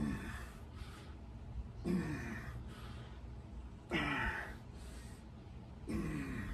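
A man breathing out hard with a short voiced grunt that falls in pitch, about every two seconds, one with each rep of heavy dumbbell hammer curls.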